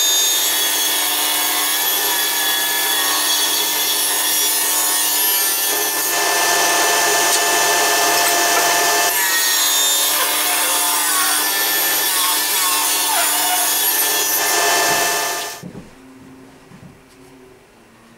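Table saw running and ripping sapele mahogany, a loud steady cutting noise over the blade's steady tone, which cuts off abruptly about fifteen and a half seconds in, leaving only quiet room sound.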